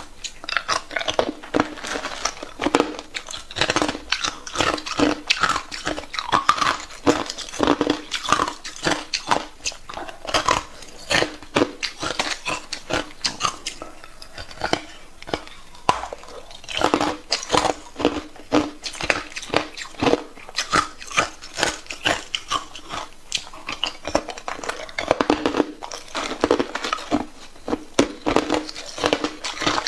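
Hard clear ice being bitten and chewed, a dense run of sharp crunches and cracks that goes on without a break.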